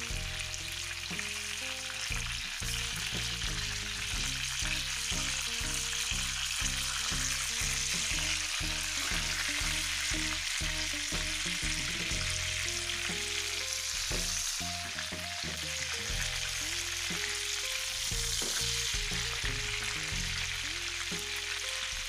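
Oil sizzling steadily under a whole chicken frying in a pan, over background music with a stepping, rhythmic bass line.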